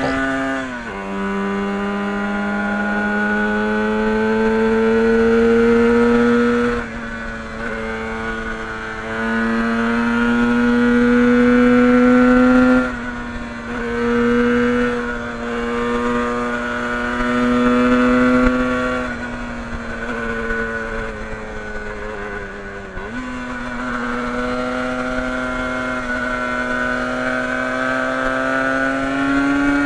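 Two-stroke motorcycle engine, most likely the Yamaha RD400's air-cooled parallel twin, pulling under load at speed. Its pitch climbs steadily and then drops sharply about every five or six seconds as gears are shifted.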